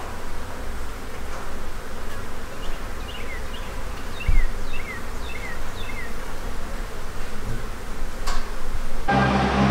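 John Deere 3032E compact tractor's three-cylinder diesel engine running steadily as the tractor drives past. A few short, high, falling chirps come in the middle, and there is a dull thump about four seconds in. Just before the end the sound changes abruptly to a louder steady hum.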